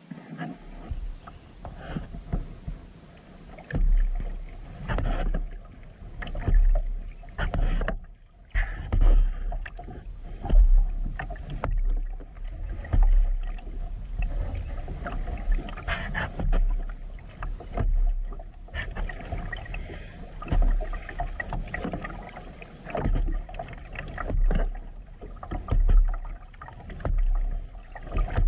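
Kayak paddle dipping and pulling through calm creek water, splashing and dripping at a steady rhythm of roughly one stroke every second or so, the strokes starting a few seconds in.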